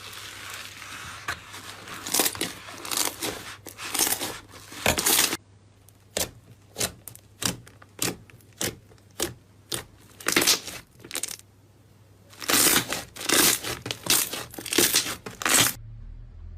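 Slime being squished and pressed by hand: many short, crackling squelches in irregular runs, with a couple of brief pauses.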